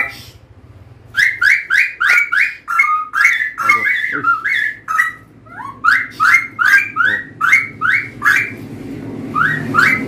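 Wild-caught straw-headed bulbul (cucak rawa) singing: a long run of short, loud whistled notes, about three a second, beginning about a second in, with a short break near the middle and another near the end.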